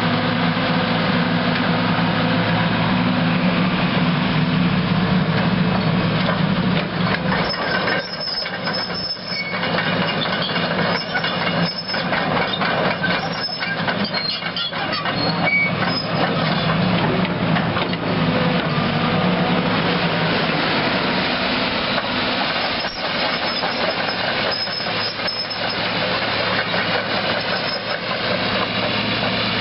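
The diesel engine of a John Deere 200C LC excavator, a John Deere 6068H, running steadily, with clusters of metallic clanks and high squeaks through the middle and again near the end.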